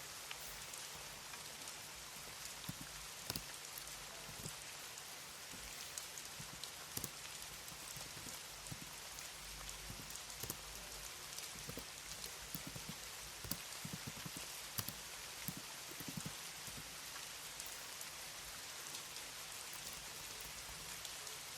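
Computer keyboard typing: irregular, scattered key taps, more of them between about 12 and 16 seconds in, over a steady rain-like hiss.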